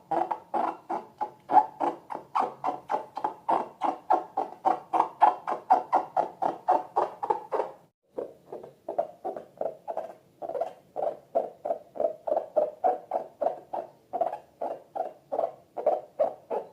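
Slime being squeezed and worked by hand in fast, even squelches, about four to five a second, with a short break about eight seconds in.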